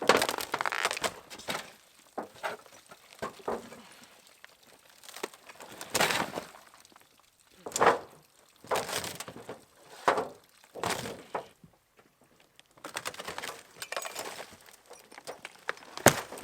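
Material cracking and breaking in a string of irregular crunches and sharp knocks, as a camper is torn apart.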